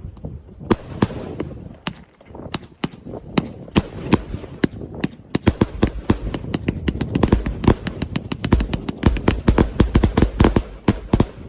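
Funke Electric Funeral 100-shot, 30 mm firework cake firing: a string of sharp shell bangs, spaced out at first, then coming thick and fast from about halfway in as the volley builds to its finale. It stops suddenly at the end.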